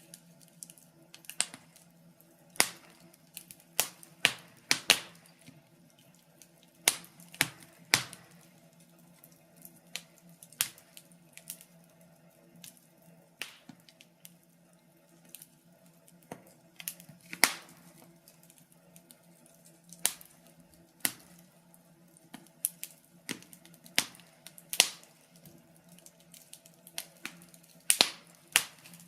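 Wood fire crackling in a fireplace: irregular sharp pops and snaps, one or two a second, some much louder than others.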